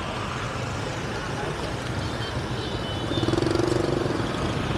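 Steady street traffic noise from passing motor vehicles, with an engine hum growing louder about three seconds in.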